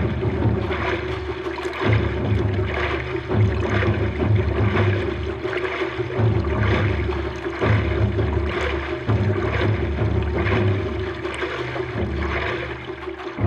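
Water splashing and sloshing against a prone paddleboard as the paddler hand-paddles hard, swelling with each stroke about every second.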